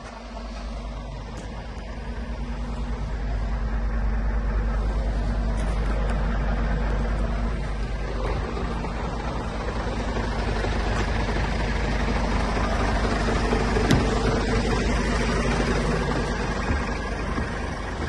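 Scania S500 truck's 13-litre straight-six diesel running with a deep, steady rumble, growing louder over the first few seconds and then holding. A single short click about fourteen seconds in.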